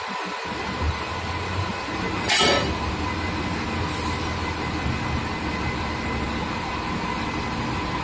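A wheel loader's diesel engine running steadily, with a short hiss about two seconds in.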